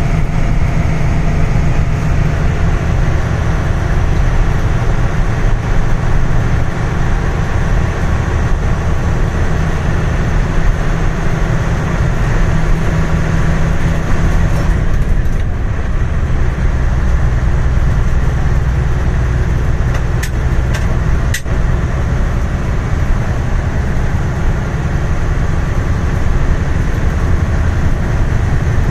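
Steady road and engine noise inside a moving vehicle: a deep, continuous rumble with a faint hiss above it, and a few short clicks about two-thirds of the way through.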